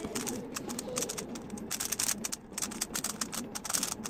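Rapid, irregular clicking of a 3x3 speedcube being turned quickly during a solve, layer turns clacking in quick runs.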